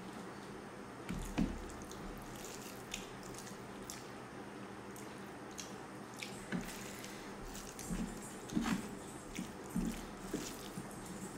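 Wet eating sounds: white rice and fish curry squished and kneaded by hand on a plate, with chewing and lip smacks. A few louder soft thumps come about a second in and again near the end.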